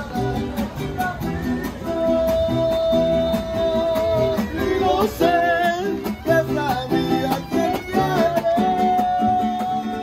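Mariachi band playing live: violins and a man's voice carry long held melody notes over strummed guitars and the deep plucked bass of a guitarrón.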